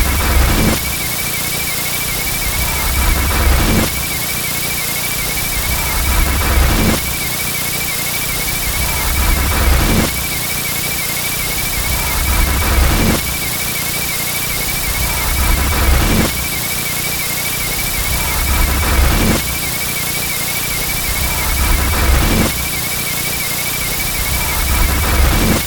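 Looped sound effect: a low rumbling surge that repeats about every three seconds, under a steady warbling high whine.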